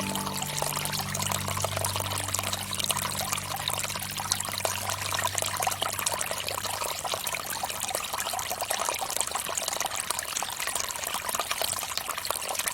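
Water from a bamboo fountain trickling and pouring steadily. A low held chord of background music fades away about halfway through.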